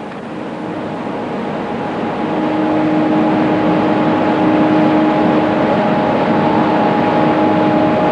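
Steady engine or machine noise with a constant whine, swelling over the first three seconds and then holding steady.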